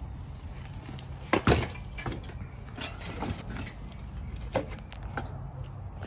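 A BMX bike being set down against a stone ledge: one loud metallic clank about a second and a half in, then a few lighter knocks and rattles from the frame and parts.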